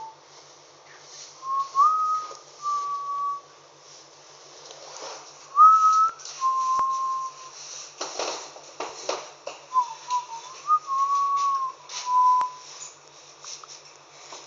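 Clear whistled notes in three short phrases, each a quick upward slide into a held tone, with a burst of rustling noise between the second and third phrases.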